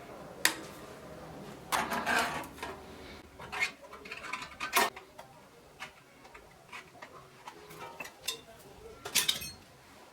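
Irregular clinks, knocks and short scrapes of metal pieces and hand tools being handled, with the loudest clatter about two seconds in and again near the end.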